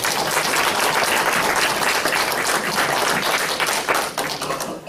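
Audience applauding: many hands clapping at once, holding steady and then fading away near the end.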